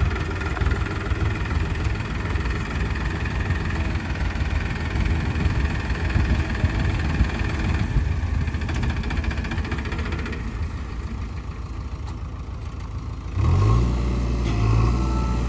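Heavy diesel engine running, rough and low. About thirteen seconds in, the sound changes abruptly to a louder, steadier low drone.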